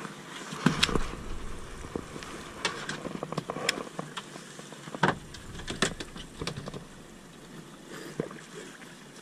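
Small waves lapping and slapping against the side of a drifting fishing boat, with scattered sharp knocks and clicks through it.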